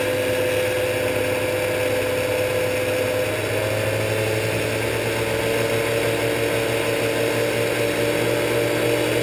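Shopsmith 10ER headstock driven through a belt by a Leeson 3/4 HP DC motor, running at high speed with a steady hum and whine. The pitch rises slightly about three and a half seconds in as the speed control is turned up.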